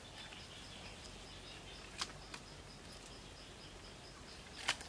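Forest insects calling: a high note pulsing evenly about four times a second over a faint steady insect hiss. Over this come a few sharp clicks from sticks and cord being handled as a stick shelter wall is lashed, two about two seconds in and the loudest near the end.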